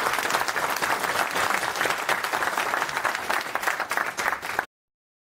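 Audience applauding, many hands clapping in a dense steady patter that cuts off suddenly near the end.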